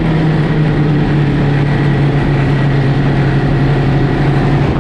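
Snowmobile engine running steadily at cruising speed under a steady rushing hiss; the engine note drops slightly a couple of times.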